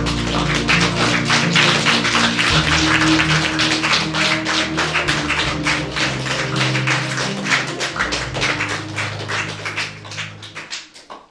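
Lively music with a fast percussive beat over held bass notes, fading out near the end.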